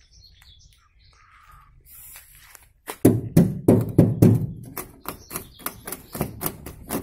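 A rapid run of knocks and taps starting about three seconds in, heavier thuds at first and then lighter clicks, about three a second.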